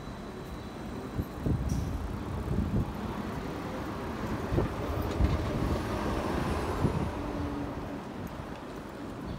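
City street traffic: vehicles passing by, swelling for a few seconds in the middle, with gusts of wind rumbling on the microphone.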